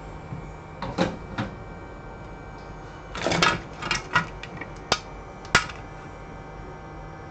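Tools and small parts being handled on an electronics repair bench: a few short rustles and sharp clicks or taps, scattered irregularly, over a steady hum.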